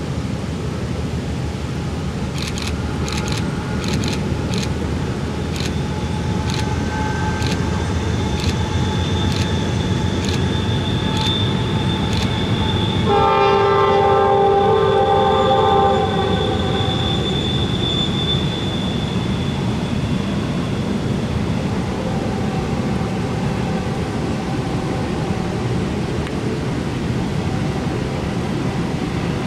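Freight train rumbling across a steel truss railroad bridge. A row of sharp clicks comes slower and slower through the first dozen seconds. About thirteen seconds in, the locomotive sounds one horn blast of about three seconds, a chord of several notes.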